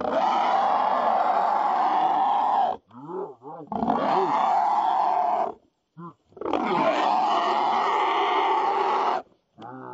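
Caught hog squealing in three long, harsh screams of a couple of seconds each, with short rising-and-falling grunting squeals in the gaps between them: the distress squeal of a hog pinned down by catch dogs and a man.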